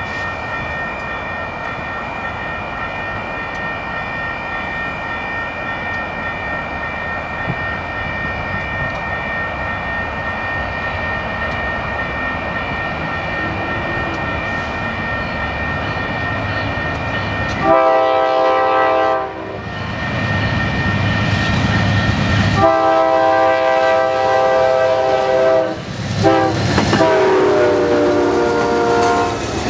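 Amtrak P42DC-hauled passenger train approaching at speed, its running noise building steadily. About two-thirds in, the locomotive horn sounds three times: a short blast, then two longer ones, the last dropping in pitch as the locomotive passes.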